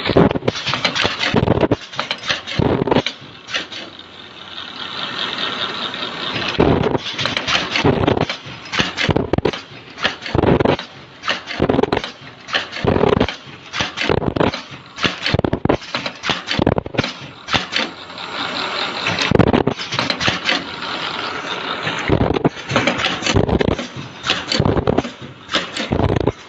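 Automatic face mask earloop machine running, its mechanism clattering with a quick run of irregular knocks and clacks, with a steadier hiss for a couple of seconds about four seconds in.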